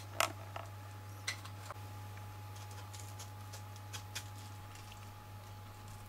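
Small clicks and soft taps of watermelon pieces being handled and set on a wooden cutting board, about half a dozen, the loudest just after the start, over a steady low hum.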